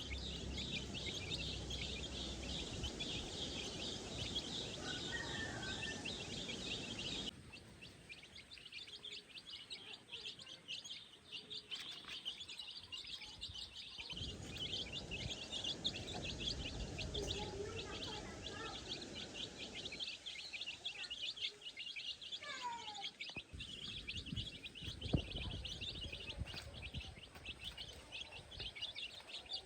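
A dense, steady chorus of rapid high chirping, with a few short falling calls about three-quarters of the way through. The background changes abruptly several times.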